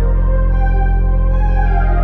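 Ambient electronic music: a steady deep bass drone under slowly swelling synth chords.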